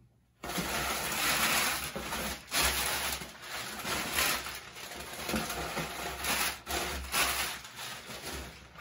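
Packing material rustling and crinkling in uneven bursts as hands dig through a cardboard box, starting about half a second in.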